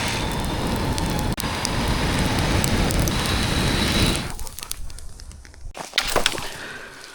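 Campfire burning: a steady rushing noise that drops off suddenly about four seconds in, leaving quieter crackles and a few sharp pops.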